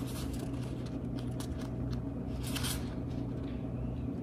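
A book being handled and its pages leafed through to check the page count: a few light clicks and taps, then a short rustle of pages about two and a half seconds in, over a steady low hum.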